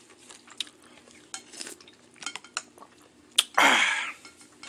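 Spoon and chopsticks tapping and clinking against a bowl of pho, then a loud slurp of broth about three and a half seconds in.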